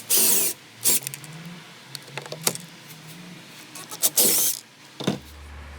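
Sharp clicks and two short, loud scraping bursts from tool work on dashboard trim as two T20 Torx screws are removed.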